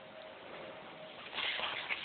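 Rustling and light scraping of a cardboard box and paper packaging being handled, starting about one and a half seconds in after a quiet stretch with a faint steady hum.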